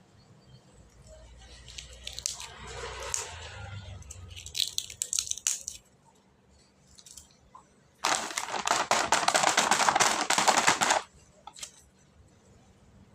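Snack packaging crinkling and tearing: a soft rustle with a few sharp crackles over the first few seconds, then a loud, dense crinkling that lasts about three seconds in the second half.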